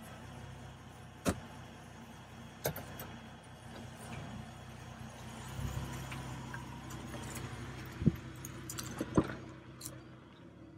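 2010 Ford Mustang's V6 engine running with a steady low hum that grows a little louder about halfway through, with four sharp clicks or knocks over it.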